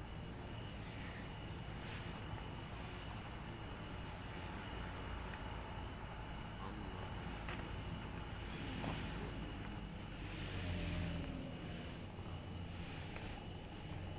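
Insects chirping in fast, evenly repeated high-pitched pulses that carry on steadily, over a low rumble and a few faint knocks.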